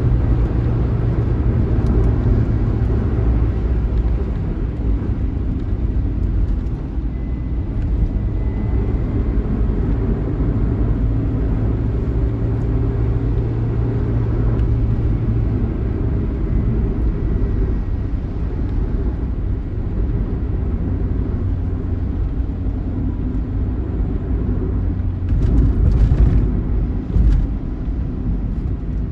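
Intercity coach running at highway speed: a steady engine drone over road rumble. It grows louder and rougher for a couple of seconds near the end.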